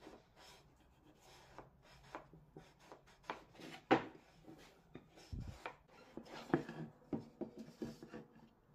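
MDF jig pieces being slid, set down and knocked together on a wooden workbench: irregular light knocks and scraping rubs, the sharpest about four seconds in, with a dull low thud a little later.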